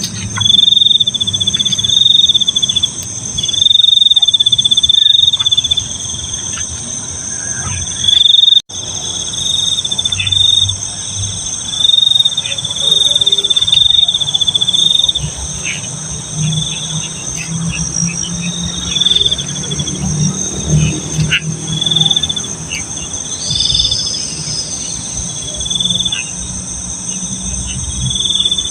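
Night chorus of crickets: a high trill that comes in repeated bursts of about a second each, over a steady higher-pitched insect buzz, with a low rumble underneath.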